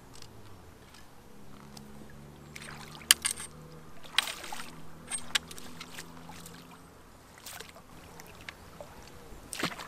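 Water splashing in short bursts several times as a hooked barbel thrashes at the surface close in, in shallow river water, with a faint low steady hum through the middle.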